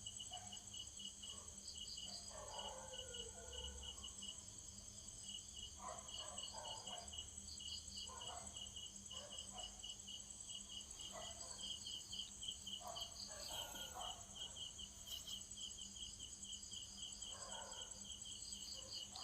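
Insects chirping: a rapid, steady pulsing with a continuous high whine above it, with faint scattered sounds in between.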